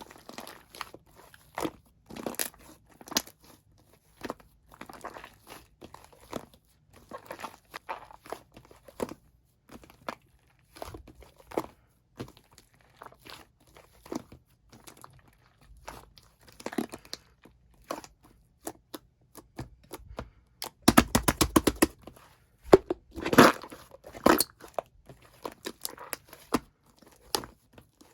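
White slime mixed with shaving foam being squeezed and worked: irregular sticky pops and crackles of trapped air bubbles, with a burst of rapid crackling about three-quarters of the way through.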